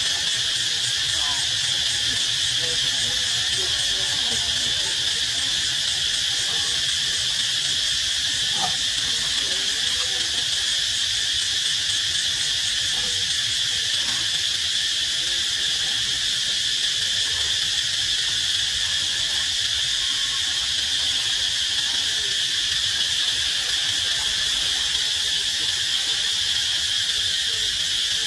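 Steady, unbroken drone of an insect chorus, high-pitched and constant in level, with faint scattered chirps beneath it.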